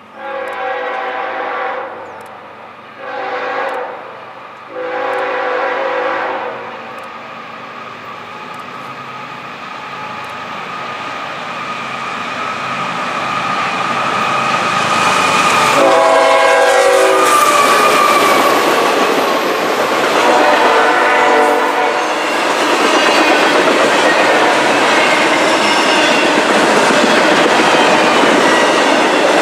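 Freight locomotive's horn sounds three blasts (long, short, long) as the train approaches, then two more as it draws near. After that the locomotive and double-stack container cars pass close by, their wheels rumbling and clattering over the rails as the noise builds to a steady loud roar.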